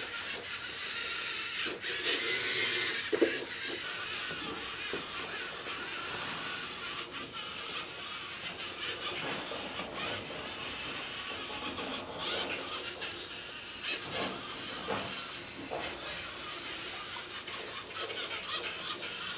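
LEGO NXT servo motors whirring and wheels rolling as a small line-following robot drives its course, with a brief louder rushing noise about two to three seconds in.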